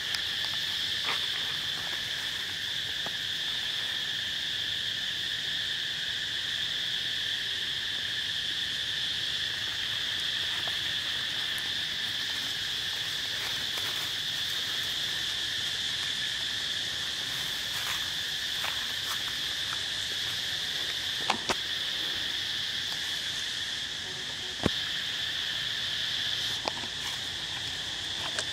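Insect chorus: a steady, unbroken high drone holding two pitches, with a few sharp clicks in the later part.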